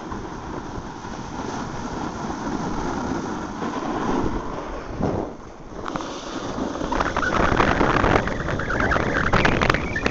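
Wind rushing over the microphone and a snowboard sliding and scraping over the snow as the rider goes down the piste, getting louder and rougher after about six seconds.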